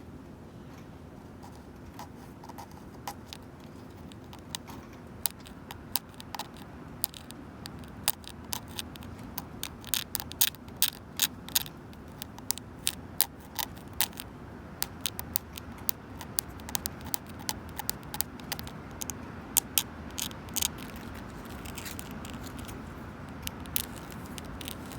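Long natural fingernails scratching and tapping on a wooden bench: quick, sharp, irregular clicks and short scrapes that start about two seconds in, come thickest through the middle and thin out near the end. A steady low rumble of wind and passing traffic runs underneath.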